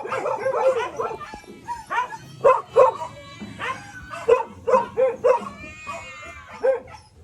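Several shelter dogs barking and yipping in short, irregular calls, with a longer high whine about six seconds in.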